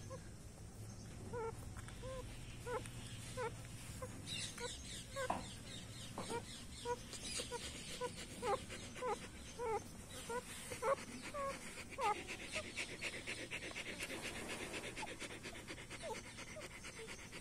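Newborn puppies squeaking and whimpering repeatedly while suckling from their mother, in short high cries about every half second. In the second half a fast, rhythmic breathing sound joins in.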